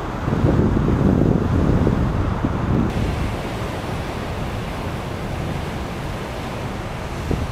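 Heavy surf breaking over rocks, loudest in the first three seconds, then a steady wash of foaming sea.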